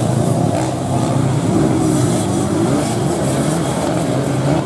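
Dirt-bike engines racing on a grass-track course, revving up and down in pitch as the bikes accelerate and back off.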